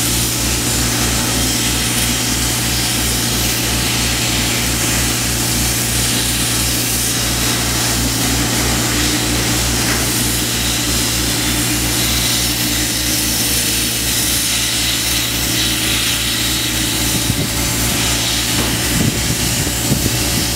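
Arc welding on a steel ship hull: a steady crackling hiss, over a low hum from an engine running nearby that pulses evenly. A few short knocks sound near the end.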